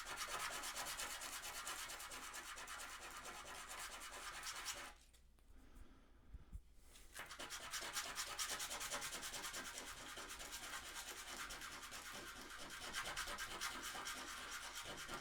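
Wooden chess piece being sanded by hand in fast, even strokes to rub out a burn mark on the wood. The sanding stops for about two seconds a third of the way through, then carries on.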